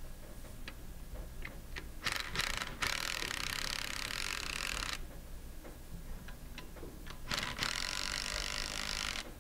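Ratchet wrench clicking while the bolts of a metal diaphragm pump's large outer-chamber clamps are tightened. A few separate ticks, then two runs of rapid, continuous ratcheting, about three seconds and two seconds long, each stopping abruptly.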